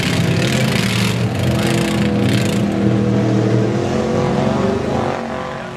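ATV engines running under load as four-wheelers churn through deep mud, with a rushing, hissing noise over the engines for the first two or three seconds.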